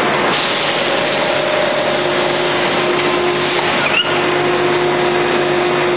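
Steady, loud machine-room din of an in-line solar panel framing line: a constant hiss with a few steady humming tones underneath, and a brief rising squeak about four seconds in.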